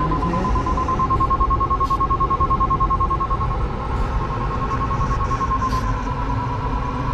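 Glider's electronic variometer sounding a steady tone of about 1 kHz, dipping slightly in pitch about six seconds in, over a steady low rush of air around the cockpit.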